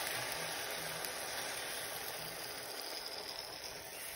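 Liquid egg whites sizzling as they are poured into a hot frying pan of wilted spinach: a steady hiss that slowly dies down.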